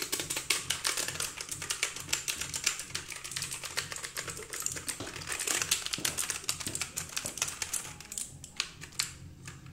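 Fast typing on a Crack K2 Pro budget mechanical keyboard, a dense run of key clicks that is the characteristic sound of a mechanical keyboard. It thins to a few scattered key presses near the end.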